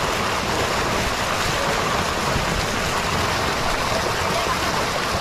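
Steady rushing and splashing of water, an even noise with no breaks, with faint voices underneath.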